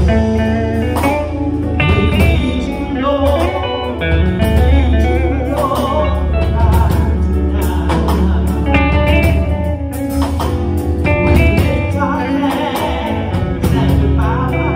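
Live church worship band playing: drum kit, keyboard and electric guitar over a strong, steady bass. A woman sings into a microphone over the band.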